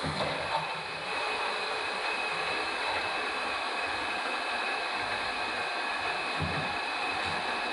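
Metal lathe running steadily: an even hiss with a constant high whine over it.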